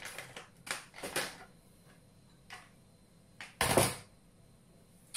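Plastic microwave-rice pouch crinkling as clumped, stuck-together cooked jasmine rice is squeezed and shaken out of it, with several short rustles in the first second and a single louder, brief rustle about three and a half seconds in.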